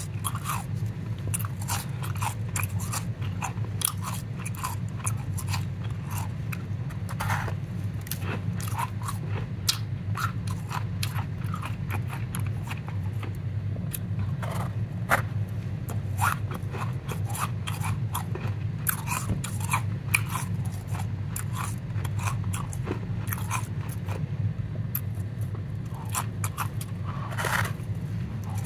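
Powdery frozen ice being bitten and chewed: a continuous run of irregular crunches, over a steady low hum.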